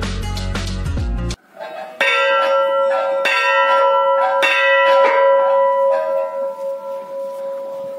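A short stretch of background music cuts off abruptly. Then a hanging brass temple bell is rung by hand with its clapper, struck about six or seven times in quick succession, roughly one and a half strikes a second. After that it is left to ring and slowly fade.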